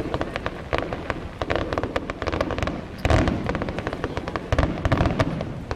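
Aerial fireworks going off in rapid succession: dense crackling and sharp bangs, with heavier booms about halfway through and again near the end.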